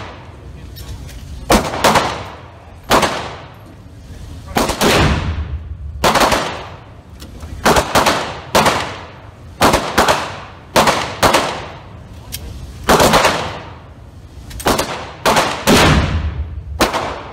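Repeated gunshots reverberating in an indoor shooting range: more than a dozen sharp shots at uneven intervals, each with a long echoing tail. Among them are shots from a Smith & Wesson .460 Magnum revolver.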